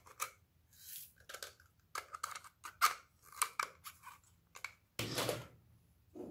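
Close-up handling of a hard plastic toy container: a run of sharp clicks, taps and crackles, then a short rattling rush about five seconds in as green sequins are tipped out of it onto the slime.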